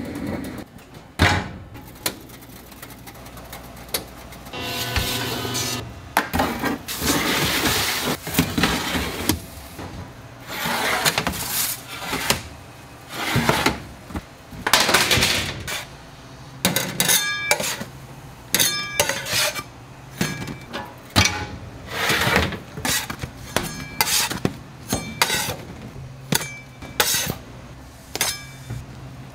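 Kitchen work: metal utensils, pans and dishes knocking and clattering at irregular intervals, with short ringing clinks and stretches of rushing noise.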